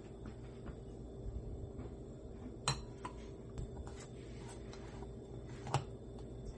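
Soft clinks and taps of kitchen glassware and utensils over a low steady hum, with two sharper clinks, about three seconds in and near six seconds in.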